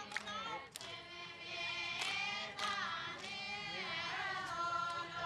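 A group of women singing a traditional chant together, their voices moving in long phrases with a few sharp percussive hits.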